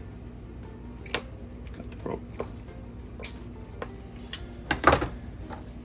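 Scattered light clicks and knocks of hand tools being handled on a workbench while a new chainsaw pull rope is trimmed. The loudest is a short cluster about five seconds in, over a low steady hum.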